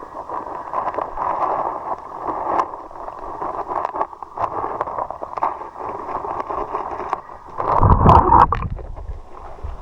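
River water rushing and gurgling close to the microphone, with a louder burst of splashing about eight seconds in.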